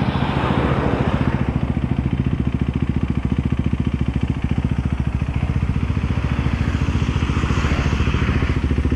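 KTM 390 Adventure's single-cylinder engine running steadily under way, with a fast, even exhaust pulse. An oncoming vehicle rushes past in the first second or so.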